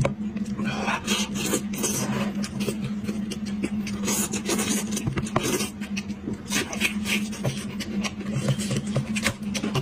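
Close-up eating sounds: wet chewing and the tearing and squelching of fingers pulling meat from a sauce-covered braised sheep's head, a dense run of small clicks and scrapes.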